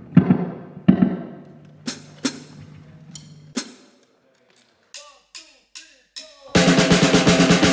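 Rockabilly band's song intro: separate drum hits over a held low bass note, then a short quiet gap with four quick falling notes, and the full band comes in loud about six and a half seconds in.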